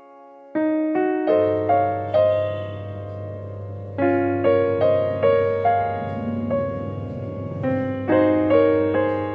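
Background music: a keyboard playing a gentle run of struck notes, each fading away, over a steady low bass note that comes in about a second in.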